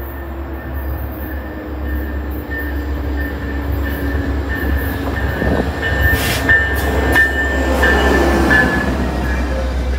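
Train running close by and growing louder, with a steady low rumble and a high, steady wheel squeal that is strongest in the second half. A few sharp clicks of wheels over rail joints come about six to seven seconds in.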